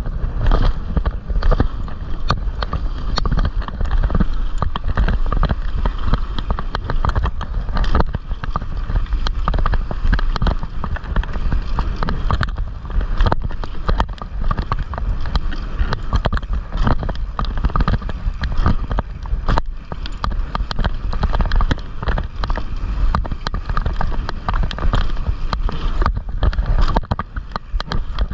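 Loose GoPro mount on a mountain bike's handlebars rattling and knocking rapidly and without let-up as the bike rolls down a bumpy dirt trail, over a steady low rumble of tyres on dirt.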